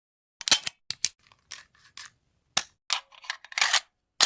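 A sound effect of sharp cracks in an irregular string, starting about half a second in, about seven in the few seconds.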